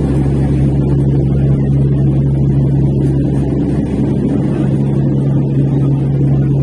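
Steady low drone of an aeroplane in flight: a constant hum that holds the same level throughout.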